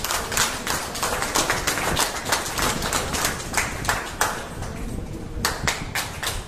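A crowd clapping: dense, uneven hand claps that thin out briefly about four and a half seconds in, then pick up again.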